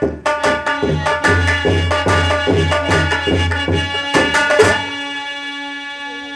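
Folk music interlude: hand-drum strokes at about three a second over a sustained held chord. The drumming stops near the end, leaving the chord to fade out.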